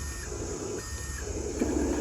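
Small electric motors and plastic gearboxes of Huina remote-control construction vehicle toys whirring. The whirring eases off at first and picks up again about a second and a half in, with a few sharp clicks.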